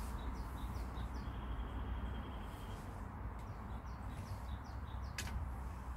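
A small songbird calling: groups of short, falling high chirps, with a held high trill between them, over a steady low rumble. A single sharp click comes about five seconds in.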